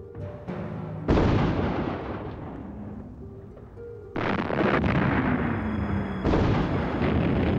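Heavy artillery fire: a sudden loud boom about a second in that rumbles away over a few seconds, then further blasts about four and six seconds in. Background music plays under it at the start.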